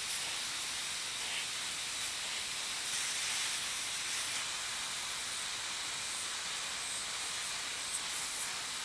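Nitrogen plastic welder blowing a steady hiss of hot nitrogen gas from its nozzle over a repaired plastic headlight tab, heating the surface to bring the colour back into the plastic.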